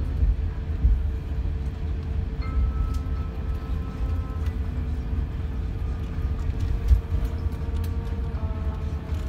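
Inside the cabin of an Airbus A380-800 taxiing after landing: a steady low rumble from the airframe rolling on the taxiway and the idling engines, with a steady hum and soft cabin music. A single thump about seven seconds in.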